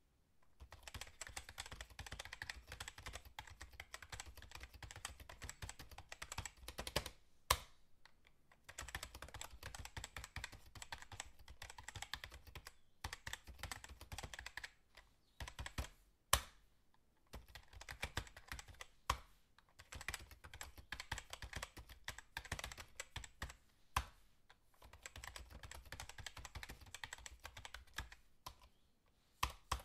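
Fast typing on a computer keyboard: rapid runs of key clicks several seconds long, broken by short pauses, with a few louder single key strikes between runs.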